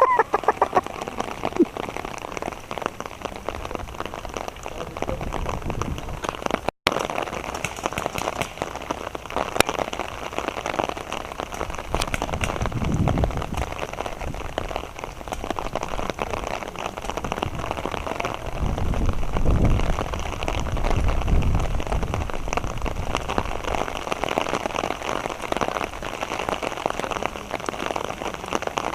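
Steady rain falling, a dense patter of drops, with a very brief dropout about seven seconds in.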